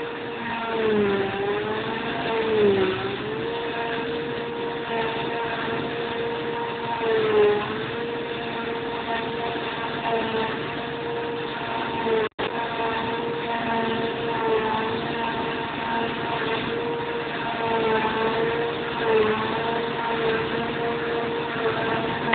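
Claas Jaguar 690 SL forage harvester running at working speed while chopping grass, a steady high whine over the engine. The whine sags briefly in pitch several times as the machine takes the load.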